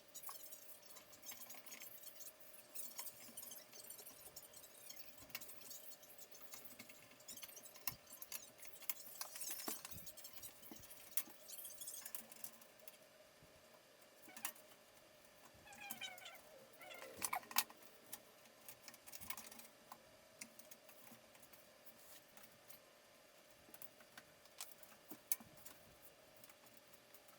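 Faint, scattered light clicks, taps and small rattles of hard parts being handled, with a brief squeaky rub about two-thirds of the way through.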